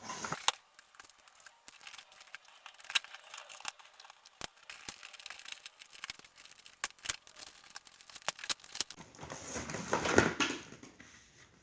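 Doll packaging being wrestled open, played back in fast motion: a rapid, irregular run of clicks, crackles and crinkling from cardboard and plastic, with a louder rustle about ten seconds in.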